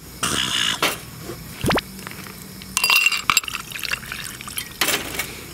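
Ice cubes clinking in a glass and shochu poured from a bottle over the ice, in several short clattering bursts with ringing glass notes and a brief rising pour.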